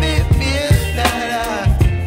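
Background music: a song with a singing voice over a steady beat and bass.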